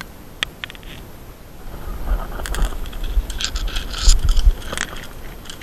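Scraping and crackling rustle, loudest from about two seconds in to near the end, with a few sharp clicks in the first second.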